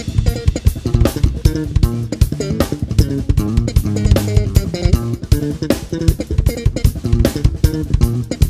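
Electric bass and drum kit playing a fast jazz-funk groove: a busy, moving bass line over dense kick, snare and cymbal hits.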